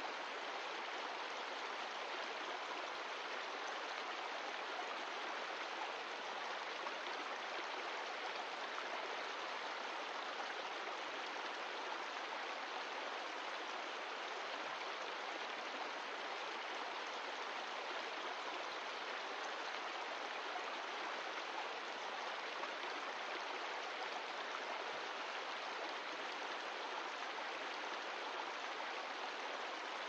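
Mountain stream of glacial meltwater flowing: a steady, even sound of running water that does not change.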